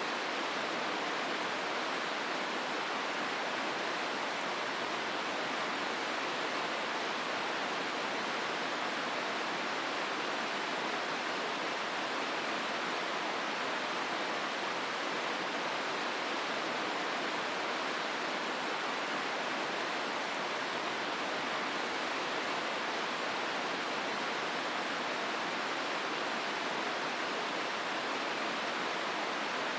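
Steady rush of the Hozu River's water flowing through its gorge, an even hiss-like noise without change.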